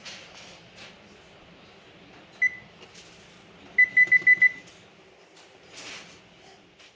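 Electronic oven control panel beeping: one short high beep, then about a second later a quick run of five beeps, as the oven is set for tempering a knife blade. Faint clicks and handling noise around it.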